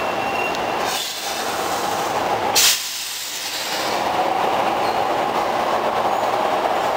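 A Nose Electric Railway 1700 series electric train, a resistance-control set, creeps up to the platform and comes to a stop. About two and a half seconds in there is one short, sharp hiss of air from the brakes, then a steady hum as the train stands.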